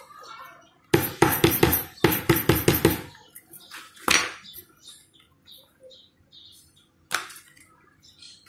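A rapid run of sharp clacks, hard bag-making pieces knocking against a hard workboard, about six a second for two seconds with a short break midway. Then two single knocks, about 4 s and 7 s in.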